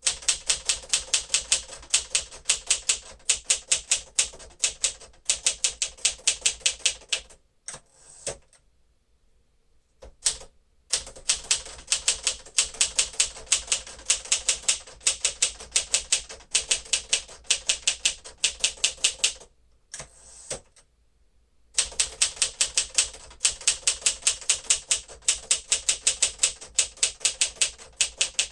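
1954 Smith-Corona Silent-Super manual typewriter being typed on quickly and steadily, a fast run of key and typebar strikes. The typing breaks off twice for a second or two, about eight and twenty seconds in.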